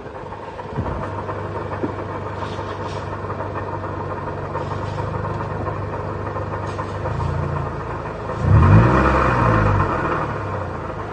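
Toyota 2AR-FE 2.5-litre four-cylinder in a Scion tC starting about a second in and running steadily, then revved up and back down near the end. It is being run to hear the worn water-pump pulley bearings, but no distinct bearing noise stands out.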